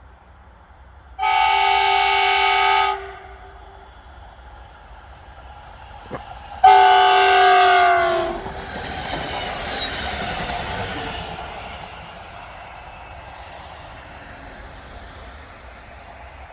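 Kockums Tyfon air horn on an electric passenger train, two blasts. The first is steady and lasts about two seconds. The second, about five seconds later, is the loudest and falls in pitch as the train goes by. The train's wheels then rattle past on the rails and fade away.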